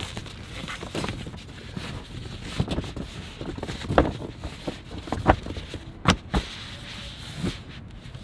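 Handling noises as a foam sleeping pad is laid over a plastic storage bin: rustling and scraping with scattered light knocks, the sharpest about four seconds in and again about six seconds in.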